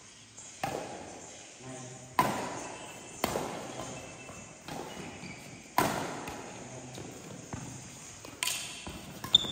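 Badminton rackets striking a shuttlecock in a doubles rally: a string of sharp hits roughly a second apart, each ringing on in the echo of a large hall.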